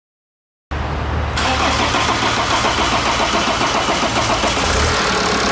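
BMW 525d's 2.0-litre N47 twin-turbo diesel engine starting and running after a turbocharger replacement, cutting in suddenly under a second in. A steady hiss from the open intake ducts joins about a second and a half in.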